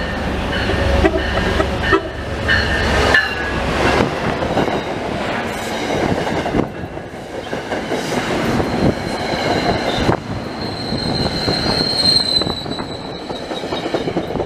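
MBTA commuter rail train passing at speed. It comes in with a heavy low rumble, then the coaches' wheels clatter and click over the rail, with a high steady wheel squeal near the end.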